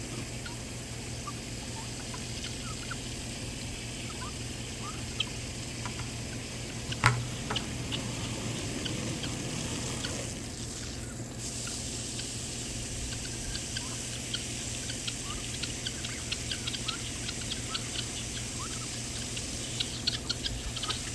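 Poultry chirping faintly and now and then over a steady low hum, with one sharp click about seven seconds in and a quicker run of chirps and ticks near the end.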